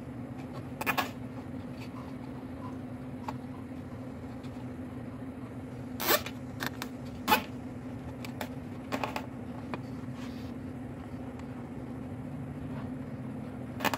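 Hands handling and fitting small plastic electrical parts and wiring: a few short sharp clicks and rustles, the loudest two about six and seven seconds in, over a steady low hum.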